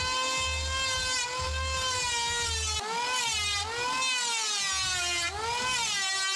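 Electric hand planer running with a steady high whine, its pitch sagging and recovering several times, most noticeably around the middle and near the end, as the blades bite into the wooden board.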